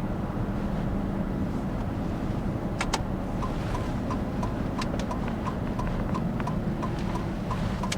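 Steady road and engine rumble inside a motorhome's cab. A little before halfway there is a sharp double click, then a turn signal starts ticking evenly, about three ticks a second.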